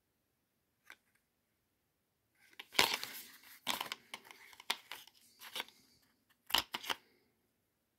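Small cardboard sample box and paper card being handled: a run of short rustling, scraping rubs and light knocks, loudest about three seconds in and again near the end.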